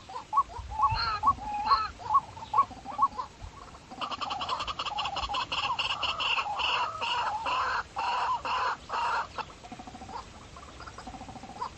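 Outdoor animal calls: short calls repeated about three times a second, then from about four seconds in a denser chorus of rapid pulsing calls that thins out again after about nine and a half seconds.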